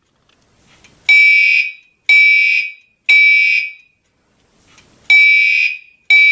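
Gentex Commander 3 fire alarm horns sounding the panel's California code: loud, buzzy electronic horn blasts about a second apart, three and then two after a short pause.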